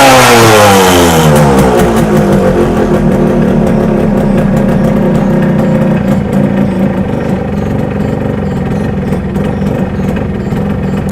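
TVS Suzuki Shogun's 110 cc two-stroke single-cylinder engine running, a little loud. It drops back from a rev in the first couple of seconds, then idles steadily.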